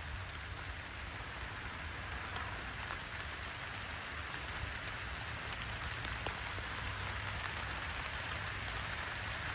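Steady rain falling, an even hiss with now and then a sharp tick of a single drop, and a steady low rumble underneath.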